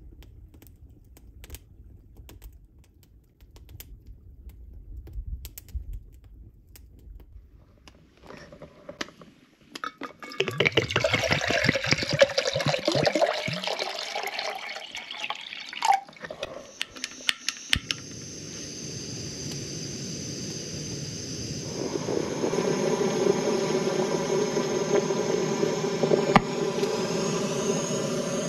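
Water poured from a bottle into a Jetboil Flash cooking cup, splashing for several seconds. A sharp click follows, then a steady hissing hum with several held tones builds and holds: the Jetboil's gas burner running under the cup to heat the water.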